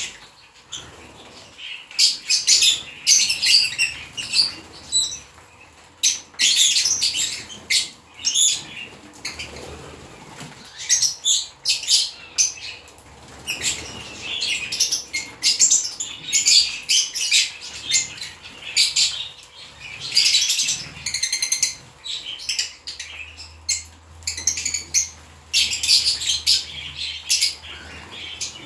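A flock of lovebirds chirping and chattering in many short, high calls that come thick and irregular, with wings flapping now and then as birds take off and land around the feeding dish.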